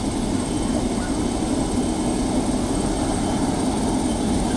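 Turbine ambulance helicopter running on the ground with its rotor turning: a loud, steady rotor-and-engine noise with a thin high turbine whine above it.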